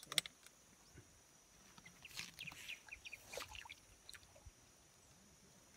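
Faint handling sounds as a caught tilapia is put into a mesh keep net at the water: scattered small clicks, with brief splashy rustles of water and net a couple of seconds in.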